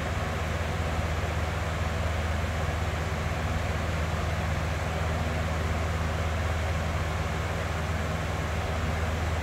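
Box fan running steadily: an even rushing of air with a low hum underneath, no change in speed.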